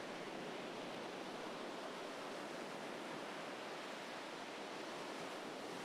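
Ocean waves on a sandy beach: a steady, unbroken wash of surf noise.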